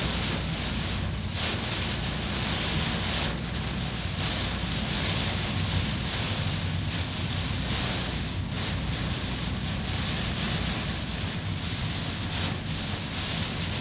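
Heavy rain falling on a moving car's roof and windscreen, heard from inside the cabin as a steady hiss over the low rumble of the car on the wet road.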